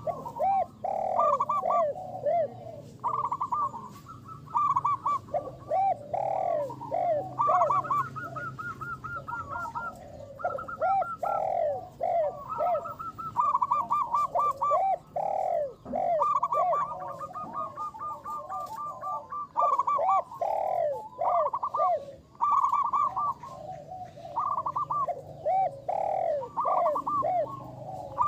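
Zebra doves (perkutut) cooing in rapid rippling phrases of short notes, several phrases overlapping at different pitches, with brief pauses between bouts.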